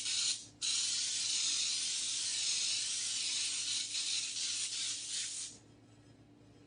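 Aerosol can of baking spray hissing as the cake pan is coated: a short spray that stops about a third of a second in, then one long spray of about five seconds that cuts off near the end.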